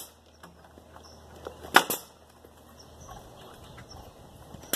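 Pneumatic nail gun driving nails into wooden fence boards: a sharp double snap about two seconds in and another near the end.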